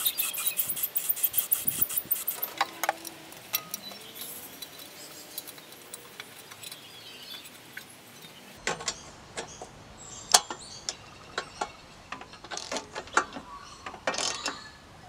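Aerosol spray-paint can hissing in short pulses at the start. After a cut, sharp metal clicks and clinks, then a quick run of clicks near the end from a ratchet socket wrench tightening the muffler bolts.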